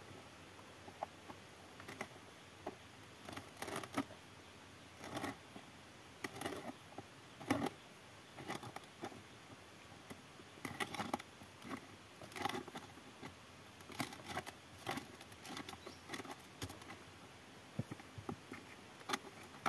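Allen key working the fixing screws out of a BMW E90 accelerator pedal assembly: irregular small metal clicks and scrapes, with hands handling the pedal base and footwell trim.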